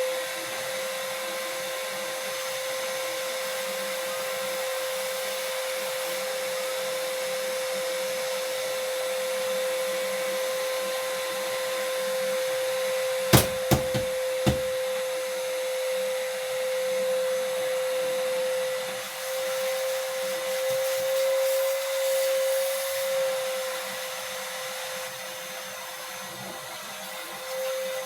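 Electric car-paint polishing machine running steadily with a high, even motor whine, working polish into the paint. A few sharp knocks come about halfway through, and the whine wavers slightly later on as the pad is pressed and moved.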